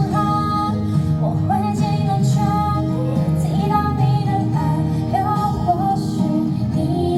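A woman singing a song over instrumental accompaniment, holding long notes that waver slightly.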